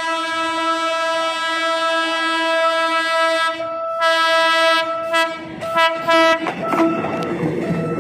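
A PNR commuter train's horn sounds a long blast, then a shorter one and a few quick toots. From about six and a half seconds in, the train rumbles and clatters past on the tracks.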